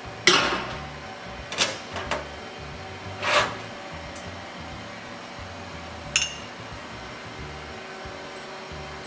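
Soft background music under a few sharp kitchen clatters as ceramic bowls are set down and handled: the loudest knock comes right at the start, a few more follow over the next three seconds, and a short ringing clink comes about six seconds in.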